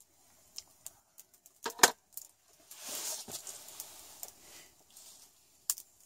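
Small wood campfire crackling with scattered sharp pops, the loudest a little under two seconds in, and a brief soft hiss around the middle.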